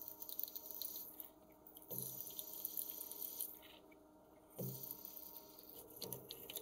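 A drill turning in the spindle of a TRAK DPM RX2 bed mill and cutting into a metal block: a steady spindle hum under a hissing cut. The cut comes in three or four spells, each starting with a dull thump.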